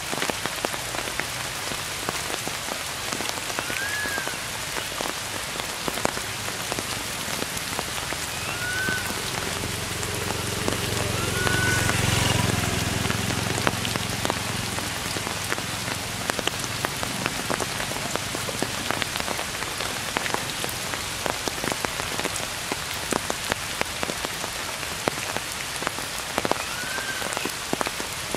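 Steady rain falling on forest leaves, with many separate drops ticking. A low rumble swells and fades around the middle, and a few short high chirps sound now and then.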